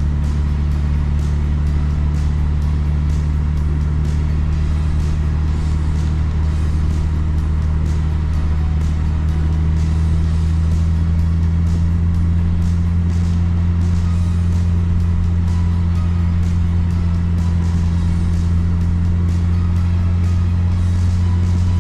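Car driving: a steady low drone of engine and road noise, rising slightly in pitch and loudness about eight to ten seconds in as the car picks up speed.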